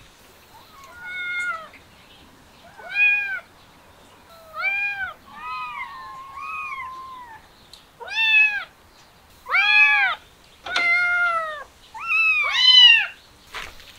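Kittens meowing over and over, about ten high meows that each rise and fall in pitch. A couple of them are drawn out longer, and the loudest come near the end.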